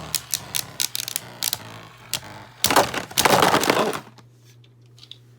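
Spinning Beyblade tops clashing and rattling in a plastic stadium: rapid sharp clicks of hits, then a dense loud clatter about two and a half seconds in that stops abruptly, leaving only a few faint ticks.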